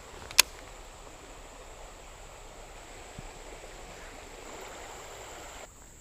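Creek water running steadily over a shallow riffle, with one sharp click about half a second in. The water sound drops away abruptly shortly before the end.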